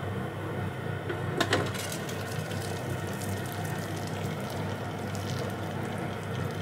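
Water simmering and steaming under a pan on a cooktop, with a steady low hum, and a short clink about a second and a half in as the glass pan lid is lifted.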